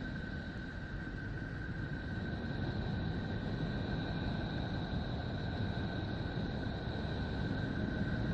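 Steady space-sound recording of a planet or other celestial object: an even low rumbling hiss with two thin high tones held throughout.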